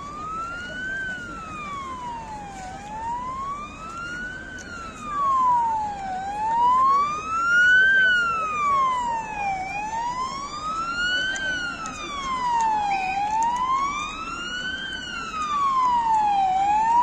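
Emergency vehicle siren on a slow wail, its pitch rising and falling evenly about every three and a half seconds. It grows louder about five seconds in.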